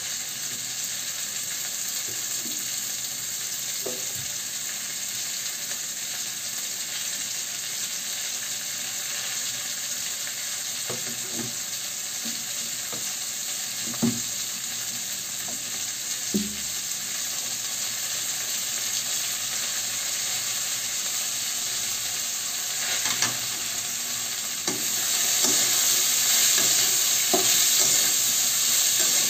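Sliced bitter gourd frying in oil in an aluminium kadai, with a steady sizzle. A couple of light knocks come midway, and near the end the pan is stirred and the sizzle gets louder.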